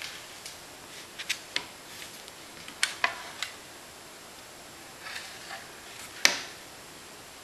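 Scattered light clicks and taps from hands tying knots in embroidery floss on a hardboard clipboard, with a sharper click a little after six seconds in.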